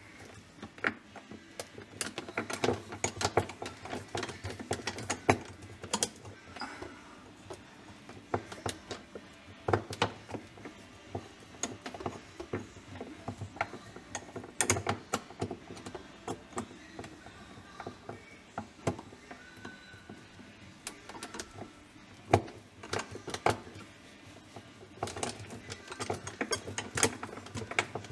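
Irregular clicks, taps and knocks of hands and a screwdriver working at the screws and clips of a refrigerator's plastic interior panels, with a few sharper knocks scattered among them.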